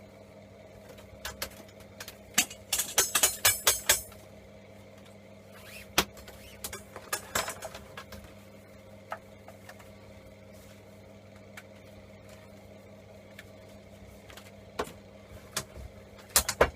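Small metal parts of a MIG welding torch clinking and tapping as they are handled during a teardown, with a quick flurry of jingling clinks about three seconds in and scattered single taps after, over a steady low hum.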